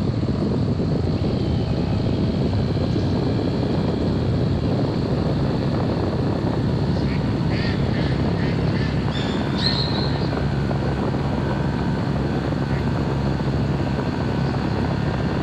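Homemade radio-controlled seaplane's motor and propeller running steadily as the plane taxis on the water.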